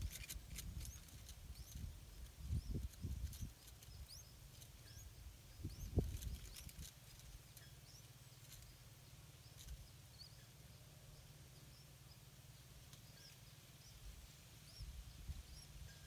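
Faint, short high-pitched bird chirps scattered throughout, with soft rustling and a few low thumps in the first few seconds and again about six seconds in.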